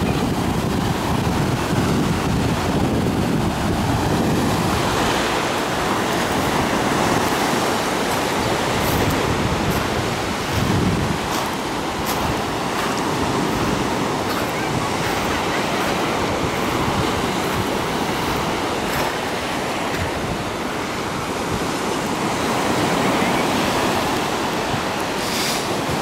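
Sea waves breaking and washing up a sandy beach in choppy surf, a steady rushing wash. Wind buffets the microphone with a low rumble, heaviest in the first few seconds.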